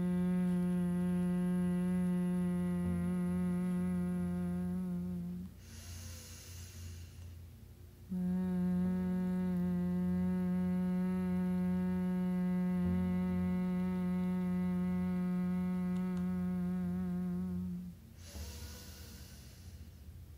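Bhramari (humming bee) breath: a woman hums one steady low note with closed lips through each long exhale. There are two hums, the second about ten seconds long, and each is followed by a short breathy inhale.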